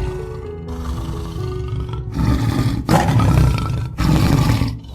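Tiger roaring several times, the loudest roars coming in quick succession in the second half.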